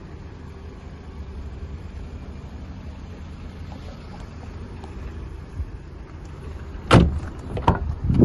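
Low steady rumble of handling noise on a handheld microphone, then sharp knocks about seven seconds in and again near the end.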